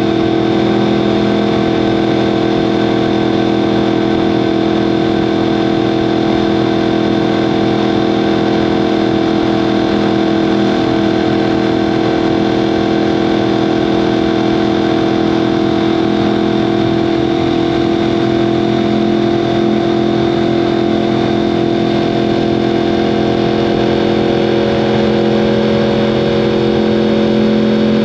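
A 2015 Yamaha R1M's crossplane inline-four running through an Akrapovic exhaust at steady revs. The engine note holds nearly constant and rises slightly near the end.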